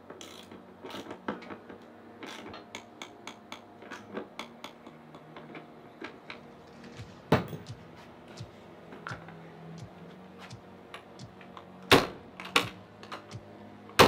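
Airstream aluminium entry door being worked open and shut, its latch mechanism clicking repeatedly, with a few louder knocks as the door closes and catches on the freshly adjusted latch.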